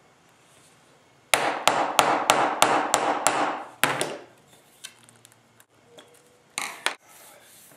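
Wooden mallet striking the end of a small wooden-handled tool set into a block of wood: about eight sharp knocks, roughly three a second, the last after a short pause. A brief scuff follows near the end.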